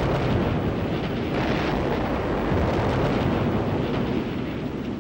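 Bomb explosions: a continuous rumbling roar that swells at the start and again about a second and a half in.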